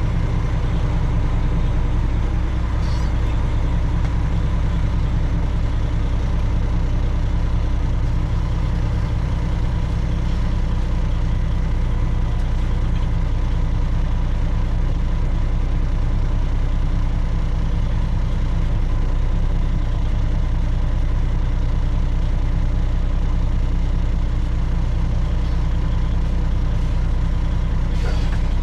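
Semi truck's diesel engine running steadily, a low, even drone that does not change in pitch or loudness.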